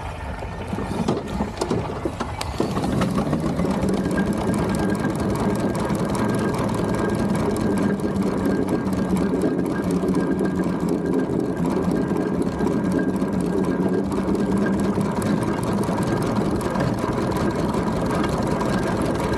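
Steam traction engine on the move, a steady mechanical running with a few held tones that grows louder about two and a half seconds in and then stays even.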